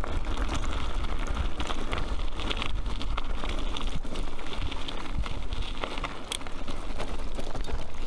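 Bicycle being ridden: tyres rolling over the ground and the bike rattling, with many small clicks and knocks, under a steady rumble of wind on the microphone.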